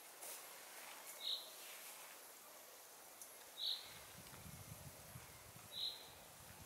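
A bird gives a short high call three times, about two seconds apart, over faint woodland ambience. A faint low rumble comes in about four seconds in.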